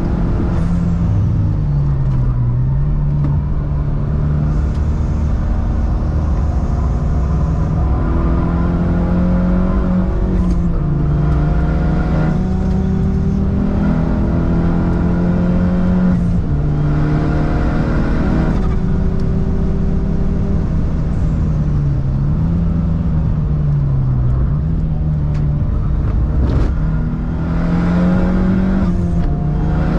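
Car engine under hard acceleration, its pitch climbing through each gear and dropping back at the shifts, easing off for corners a couple of times.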